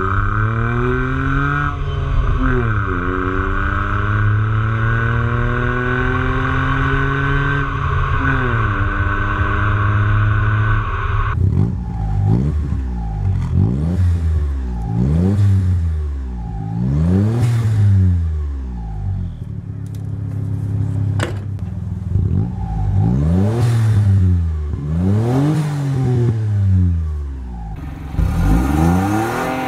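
Toyota Aygo's 998 cc three-cylinder engine through a sport exhaust, heard at the tailpipe while accelerating, its pitch climbing with the revs and dropping at two gear changes. About eleven seconds in, a Daihatsu Mira's 847 cc three-cylinder is revved at a standstill in a series of quick rev blips. Near the end, a BMW 115i's 1.5-litre three-cylinder begins revving.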